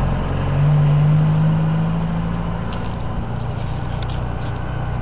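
Isuzu pickup truck's engine running as it pulls away, a steady hum that swells briefly about half a second in and then fades as the truck draws off.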